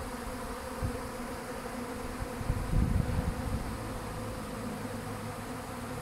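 Steady hum of a honey bee swarm, many bees buzzing in flight as the swarm moves into a bait hive. A brief low rumble comes about two and a half seconds in.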